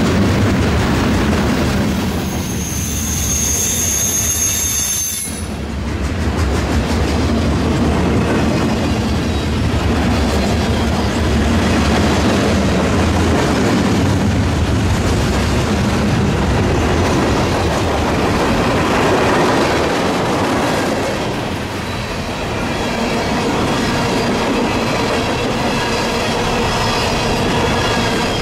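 Freight train cars rolling past with a steady rumble and rail clatter, and a high-pitched wheel squeal about two seconds in that stops abruptly a few seconds later.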